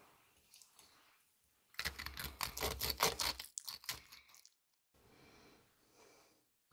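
A burst of crinkling and tearing: a dense run of crackles lasting about two and a half seconds, starting about two seconds in, followed by fainter rustling.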